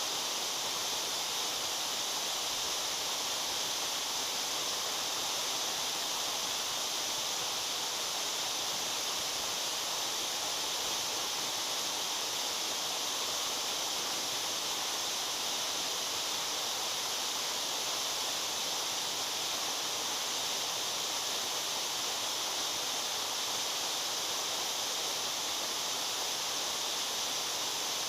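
Waterfall: water falling and splashing in a steady, unbroken hiss.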